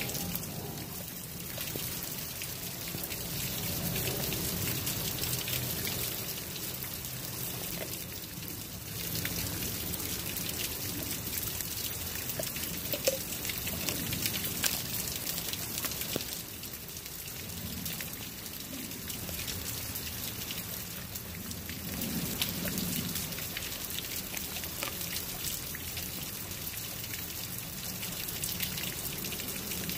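Steady rain falling close to the microphone, with many small sharp drop hits, and a dog chewing on a whole raw fish nearby.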